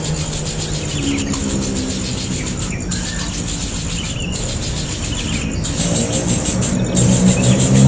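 Birds chirping in a high, continuous chatter that breaks off briefly about once a second, over low steady tones.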